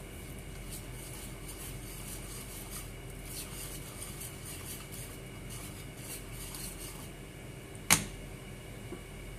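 Wire whisk scraping around a bowl, mixing flour and water into a batter: a quick run of light scratchy strokes, with one sharp clink near the end.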